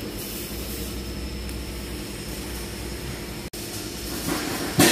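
A vehicle engine running steadily, an even mechanical hum. It cuts out for an instant about three and a half seconds in, and a short, loud burst of noise comes near the end.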